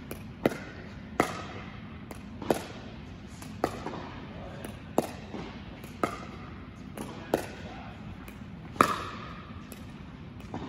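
Pickleball paddles hitting a plastic ball back and forth in a backhand dink rally: sharp pops about every second and a bit, with softer taps between, each ringing briefly in a large indoor hall.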